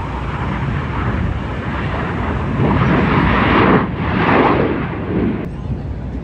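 Blue Angels F/A-18 Super Hornet jet flying past low, its twin jet engines running loud, the noise swelling to a peak about three to four and a half seconds in and then falling away.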